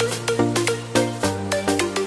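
Electronic background music with a steady beat and a pitched synth line over a bass that changes notes.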